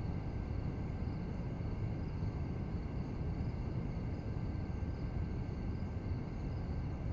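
Steady low rumble of background noise with no distinct events: room tone.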